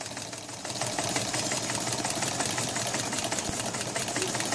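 Necchi-Alco Model 500 portable sewing machine running and stitching through fabric, a rapid, even ticking of needle strokes over the motor's hum; it picks up a little about half a second in and then runs steadily, in time and functioning as the seller describes it.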